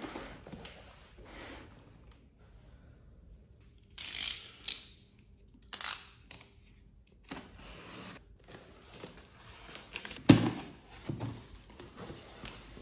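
Packing tape being slit and pulled off a cardboard box in short scratchy strokes, then the cardboard flaps handled and folded open, with one sharp thump about ten seconds in that is the loudest sound.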